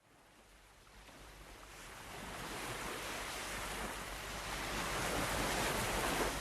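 A steady rushing noise with no distinct tone, like surf or wind, fading in from silence and growing steadily louder as an intro effect.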